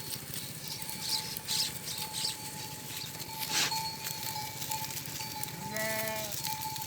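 A single short bleat from a sheep or goat near the end, with scattered light clinks of livestock bells before it.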